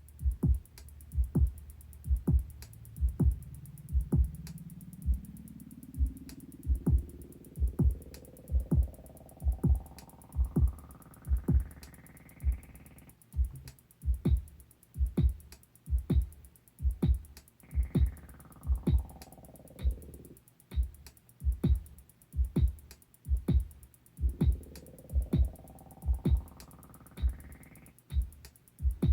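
Korg Electribe 2 groovebox playing a minimal techno pattern: a steady kick drum under a fast, constant hi-hat tick. A synth line sweeps slowly upward, cuts off about 13 seconds in, sweeps back down around 18 to 20 seconds, and rises again near the end.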